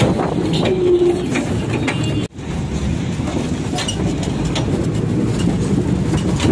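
Ride noise from the open cargo bed of a moving truck: the vehicle running along the road with the load and metal bed rattling and clicking. The sound cuts out for an instant a little over two seconds in, then carries on the same.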